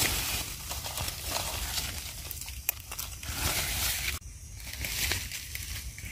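Dry fallen leaves rustling and crackling with irregular small crunches as they are disturbed.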